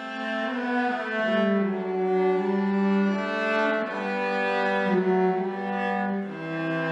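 Two cellos playing a traditional tune as a duet, bowed, with held low notes under a moving upper part whose notes change about once a second.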